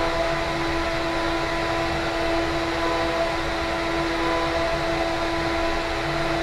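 CNC router's spindle running steadily, a constant pitched whine with overtones over a low machine rumble. The machine's built-in dust vacuum is switched off.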